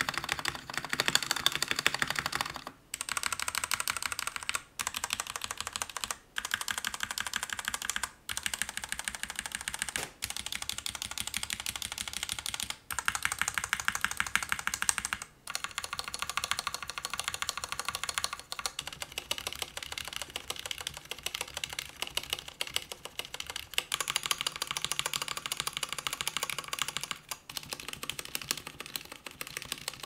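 Fast, continuous typing on a Royal Kludge RK84 mechanical keyboard with linear RK red switches, whose switches and stabilizers are factory-lubricated. The keystrokes run in a dense stream, broken by brief pauses every couple of seconds.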